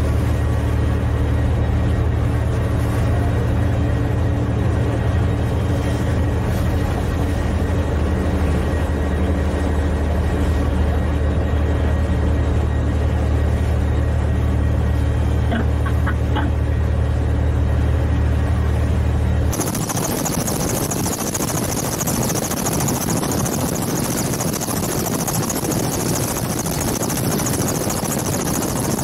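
Steady low drone of a ship's engines and machinery, with several constant hum tones, heard from aboard a vessel. About two-thirds of the way through it cuts abruptly to the loud, even rushing noise of a helicopter in flight.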